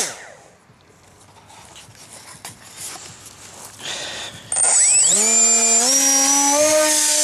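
Electric RC plane's motor and propeller whining down as the throttle is cut. About four and a half seconds in it spins up again, its whine rising in steps to a steady high pitch; the pilot feels the motor lacks thrust.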